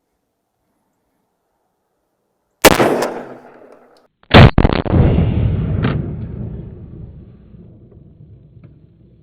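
Two shotgun shots about a second and a half apart, the second louder, with a long echo rolling away after it. The shots missed the deer, going under it.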